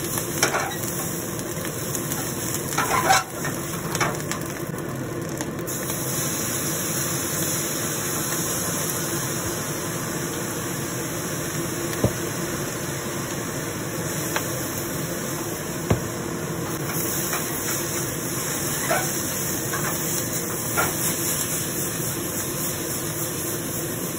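Fried rice stir-frying in a wok over a gas burner: a steady hiss of flame and sizzle, broken now and then by short scrapes and clacks of the spatula against the wok as the rice is tossed.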